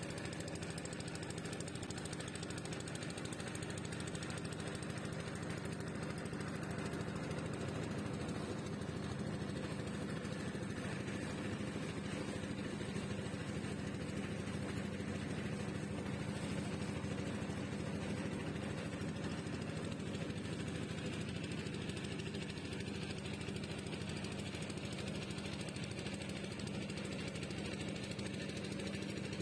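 Boat engine running steadily under way, with a rapid knocking beat and a constant low hum that does not change.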